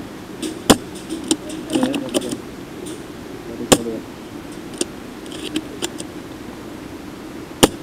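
Sharp cracks of airsoft guns firing: three loud single shots about three seconds apart, with fainter clicks of other shots between them.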